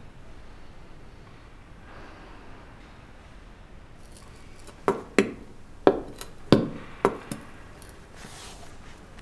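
Faint room tone, then from about five seconds in about six sharp clacks of figure skate blades knocking on a hard floor.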